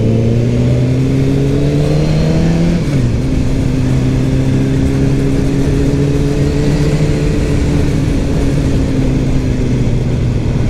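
Kawasaki Ninja ZX-10R inline-four engine heard from on board while riding. Its pitch rises under acceleration, drops sharply at an upshift about three seconds in, then climbs slowly and settles to a steady cruise.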